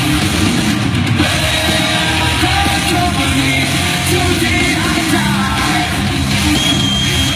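Loud rock music with a singing voice and guitar, playing steadily.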